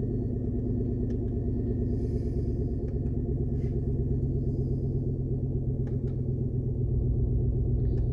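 Pickup truck engine idling, heard from inside the cab as a steady low hum that grows a little louder near the end, with a few faint clicks.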